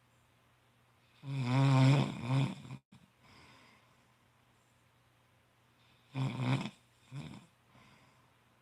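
A sleeping man snoring: one long snore about a second in, then two shorter snores close together about six and seven seconds in.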